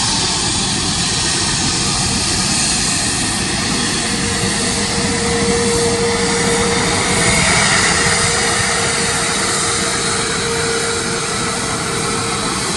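Airbus A320neo's jet engines running loud and steady, a dense rush of noise with a steady whine joining about four seconds in.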